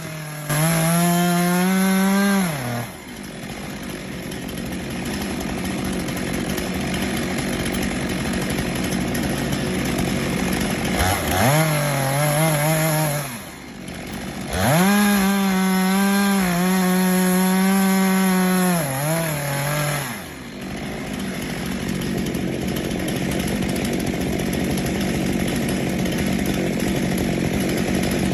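Two-stroke chainsaw running hard: three high, steady wide-open bursts of about two, two and five seconds. Between the bursts and through the last several seconds it drops to a lower, rougher sound as the chain cuts into wood.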